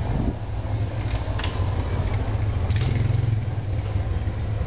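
Low, steady rumble of a motor vehicle engine running in the street, swelling slightly about three seconds in, with two faint clicks.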